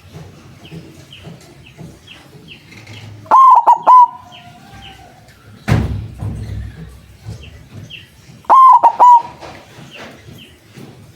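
White zebra dove (perkutut putih) cooing: two loud phrases of several short notes, a few seconds apart. A single thump falls between them, and faint high chirps run underneath.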